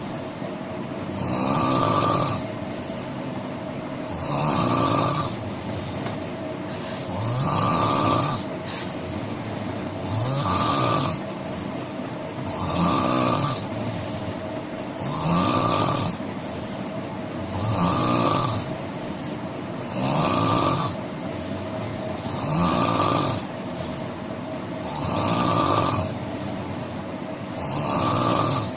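A person snoring steadily and rhythmically, one loud snore about every two and a half seconds, over a steady low hum.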